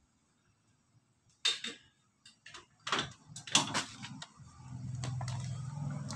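Cables and plugs being handled, a string of sharp clicks and knocks, followed by a steady low hum that starts about four and a half seconds in.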